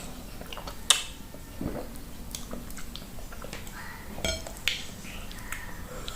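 Close-up eating sounds: a person chewing soft fufu with slimy okra soup, with wet mouth smacks and scattered sharp clicks, the loudest about a second in.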